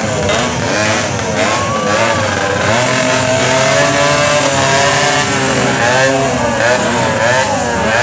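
Several small motorcycle engines idling and being revved, their pitch rising and falling again and again.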